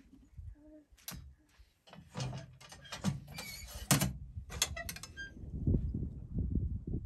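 Iron stove firebox door being swung shut and latched: a run of metal scrapes and clicks, with the loudest clank about four seconds in. After that a low, uneven rumble.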